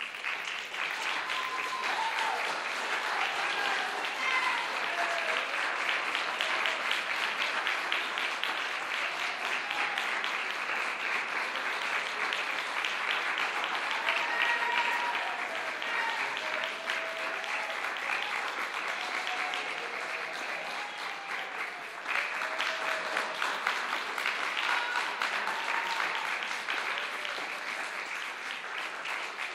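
Audience applauding, breaking out all at once and holding steady, with a few voices calling out over the clapping.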